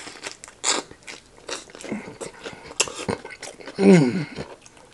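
Crisp lettuce leaves crunching as a person bites into and chews a loaded lettuce wrap: a run of sharp crunches. About four seconds in there is a short falling hum from the eater.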